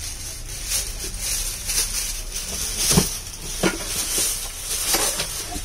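Shop room tone: a steady low hum and hiss, with two faint knocks about three seconds in.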